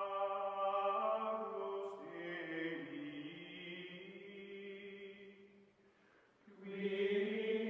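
Background music of slow, choir-like chanting in long held notes; it fades away about six seconds in, and a new, louder chord swells up soon after.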